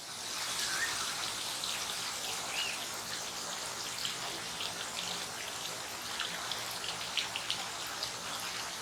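Steady patter of falling water with a few faint bird chirps.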